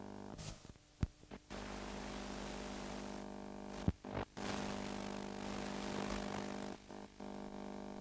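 Steady hum and hiss of VHS tape playback, broken by sharp clicks and brief dropouts about one and four seconds in and again near the end, as the video deck switches between play and fast-forward.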